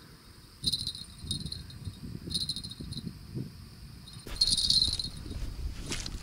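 Small bite-alarm bells clipped to a bottom fishing line jingle in three short bursts, the longest and loudest about four seconds in: a fish, here a carp, biting and pulling the line.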